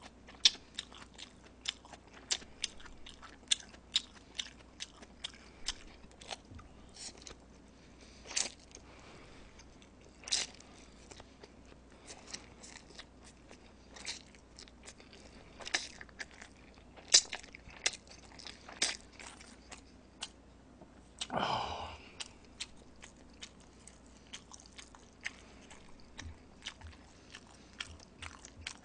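Close-miked eating of jjapaghetti noodles with chopsticks: chewing with frequent short, wet mouth smacks and clicks, a few a second. About three-quarters of the way through comes one longer, louder mouth sound that falls in pitch.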